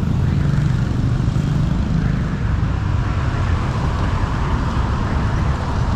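Steady low road rumble of motor vehicle traffic, even and unbroken throughout.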